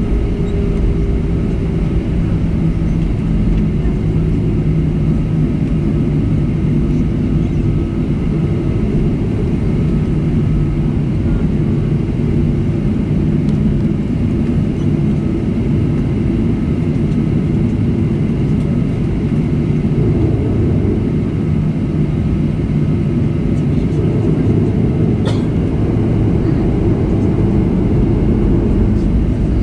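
Boeing 737-300's CFM56-3 turbofan engines running steadily at low thrust as the airliner taxis on the runway, heard from inside the cabin over the wing: a constant low rumble with a steady hum.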